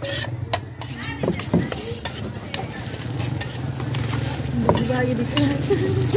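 Food frying in hot oil in a small pan, sizzling, while a metal utensil stirs and clinks against the pan.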